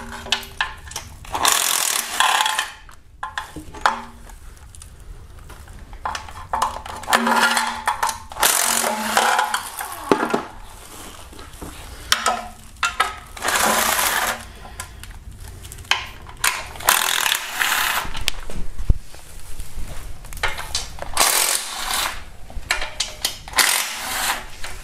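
Cordless power ratchet running in short bursts of about a second, spinning out 10 mm oil pan bolts one after another. Short clicks and clinks from the tool and loosened bolts come between the bursts.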